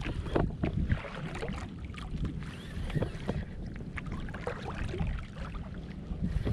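Water lapping and splashing against a kayak hull in small, irregular slaps, with wind buffeting the microphone.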